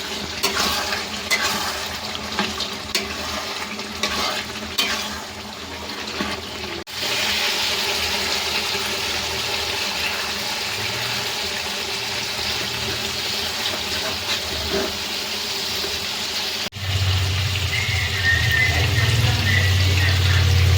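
Chicken pieces frying in a pan while a spoon stirs and scrapes, with quick clicks over the sizzle. After a cut there is a steady, even hiss for about ten seconds, and near the end a loud low steady hum comes in.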